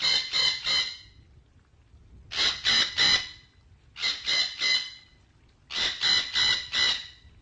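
Red-breasted parakeet calling in quick bursts of three or four loud notes, the bursts repeating about every two seconds.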